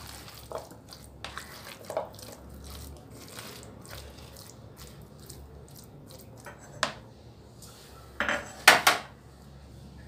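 A spoon scraping and clinking against a steel-lined bowl as a thick mix of mashed potato and chickpeas is stirred. There are scattered light knocks, with a few louder clatters near the end.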